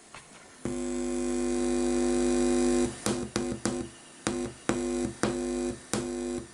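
Buzz from speakers driven by a TPA3116D2 class-D amplifier board whose inputs are left floating. It holds steady for about two seconds, then cuts in and out in short irregular bursts.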